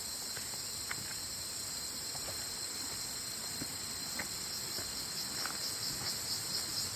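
Steady high-pitched insect chorus of the tropical forest, turning into a fast pulse near the end, with a few faint scattered clicks.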